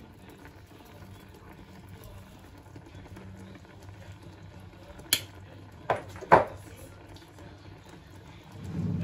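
Cream sauce simmering faintly in a frying pan, over a low steady hum. About five seconds in come three sharp knocks or clicks, the loudest a little past six seconds.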